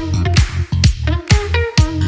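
Background music: an upbeat dance-style track with a steady beat and a bass line.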